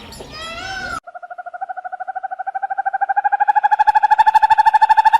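Animal calls with arching, gliding pitch cut off abruptly about a second in. A long animal trill follows: a fast, even run of pulses at one steady pitch, growing louder.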